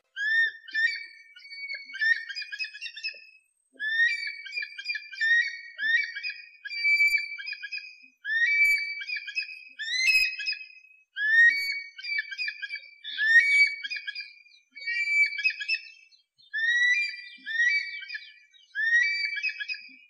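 Eagle calling in a long run of high, whistled phrases, each opening with a rising swoop and then a few short, level notes, repeated every one to two seconds.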